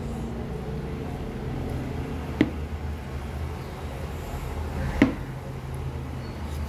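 Hand mixing rice on a metal plate while eating: two sharp clinks, one about two and a half seconds in and another about five seconds in, over a steady low background rumble.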